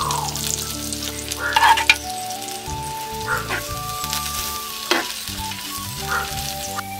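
Sliced onions frying with a sizzle in hot oil in a clay pan, stirred with a wooden spoon that scrapes and knocks against the pan several times. The loudest strike comes about a second and a half in.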